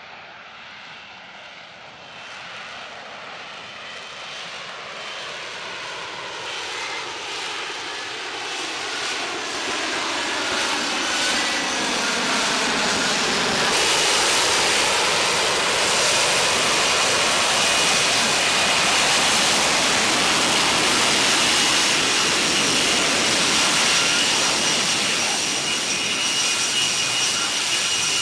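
F-35B jet engine and lift fan in vertical-flight mode: a roar that grows steadily louder as the jet closes in, with a whine sliding down in pitch. About halfway in the sound jumps to a loud, steady roar with a high, steady whine as the jet hovers close by.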